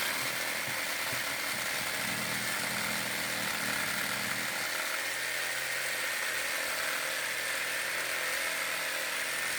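Electric jigsaw running steadily as it cuts through a piece of dry dead wood, starting abruptly at full speed.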